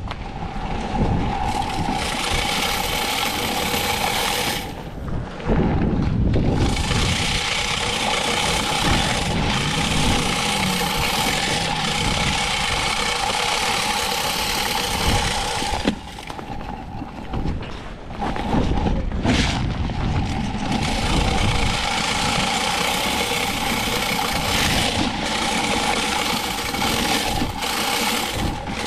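BOSS salt spreader running with a steady motor whine over wind and vehicle noise, dropping out briefly about five seconds in and again for a couple of seconds around sixteen seconds in.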